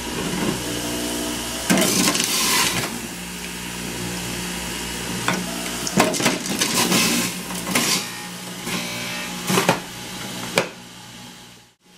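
Jack LaLanne Power Juicer's electric motor running with a steady hum, broken several times by loud grinding and crunching as apples are pushed down the feed chute onto the spinning shredder basket. The sound drops away sharply just before the end.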